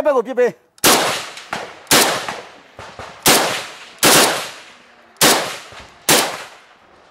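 Gunfire in a firefight: six single shots at irregular gaps of roughly a second, each a sharp crack trailing off in an echo.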